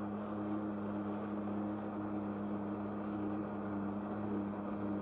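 Jet ski engine running steadily at high revs, pumping water up the hose to drive a flyboard, heard from aboard the jet ski. A constant drone with an unchanging hum.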